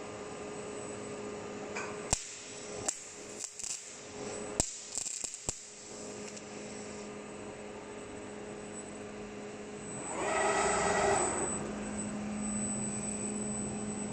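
Steady electrical hum of powered robot-welding equipment. A run of sharp metallic knocks and clacks starts about two seconds in and lasts a few seconds. About ten seconds in there is a brief, louder mechanical whirr.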